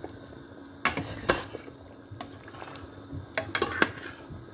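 A metal spoon stirring curry in a cooking pot, clinking and scraping against the pot's side: a couple of knocks about a second in and a quick cluster near the end.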